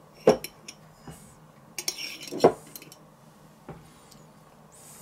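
Metal kitchen utensils clinking and knocking on a wooden cutting board: a scatter of short clinks, with two louder knocks, one near the start and one about halfway through.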